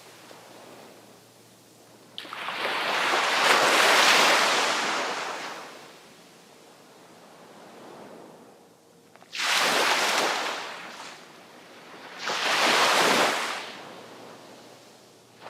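Sea waves breaking on the shore: three surges of surf, each coming in suddenly and then washing away, with quieter lulls between them.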